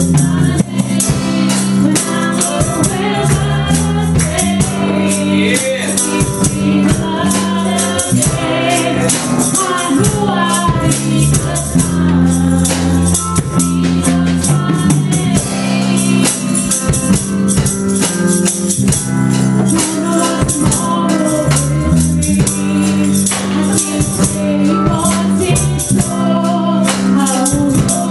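Live gospel worship music: a woman singing lead into a microphone over a small band of drum kit, guitar and keyboard, with a steady, busy beat of cymbal strikes.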